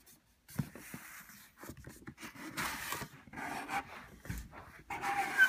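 Cardboard box being opened by hand: the lid and flaps scrape and rustle against each other in a series of scrapes, the loudest near the end.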